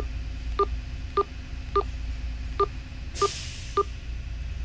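Sonim XP5S phone's key beeps: seven short two-tone beeps about every half second to second as the navigation key is pressed to scroll down a menu list. A brief hiss about three seconds in.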